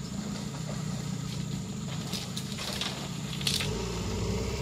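Small boat engine idling steadily, with a few sharp knocks about halfway through.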